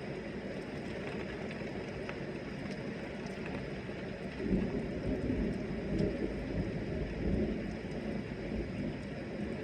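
Heavy rain falling steadily. About halfway through, a low rumble of thunder swells for a few seconds and then fades back under the rain.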